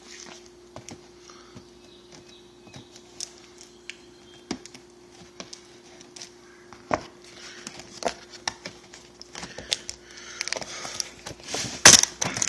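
Cardboard box packaging being handled and worked open: scattered taps, clicks and scrapes, with denser rustling and one sharp snap near the end.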